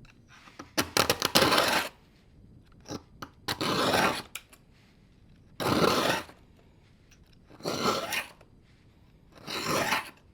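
Small round chainsaw file scraping across the cutting teeth of a small saw chain in about five separate strokes, roughly one every two seconds, sharpening dull teeth; the first stroke stutters in short scrapes.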